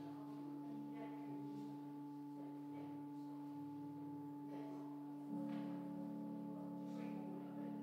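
Church organ playing slow music before Mass, with long held notes over a slowly moving bass line. A fuller chord comes in about five seconds in.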